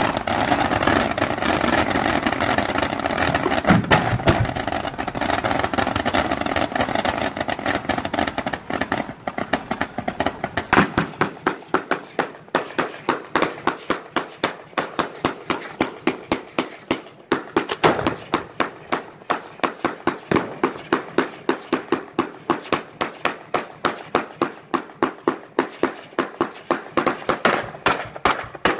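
Fireworks firing at close range: a dense, continuous rushing roar of ground fountains and comets for the first several seconds, then from about ten seconds in a fast, even string of sharp launch shots, about three a second, as comets are fired in rapid sequence.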